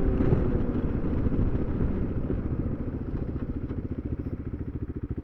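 Single-cylinder dual-sport motorcycle engine idling at a standstill, its firing pulses growing slower and more distinct as it settles down over the first few seconds.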